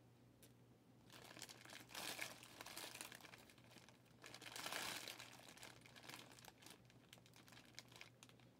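Faint crinkling and rustling of plastic wrapping being handled, starting about a second in and fading near the end, loudest around two and five seconds in.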